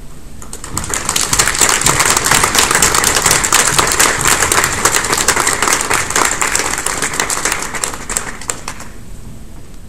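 Audience applauding: many people clapping, starting about a second in, holding steady, then dying away near the end.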